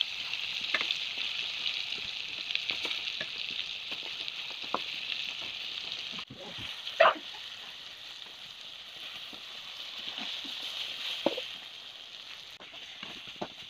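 Masala-coated crab pieces frying in hot oil in a steel pan: a steady sizzle with scattered pops. A spatula stirs through the pan, with one loud sharp sound about halfway through.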